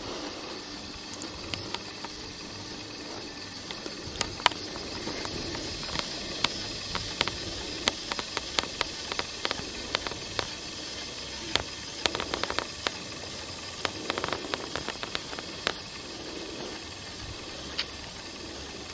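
Steady hiss with many irregular sharp clicks and soft knocks, thickest about twelve and fourteen seconds in. This is handling noise and footsteps from someone walking with a handheld camcorder.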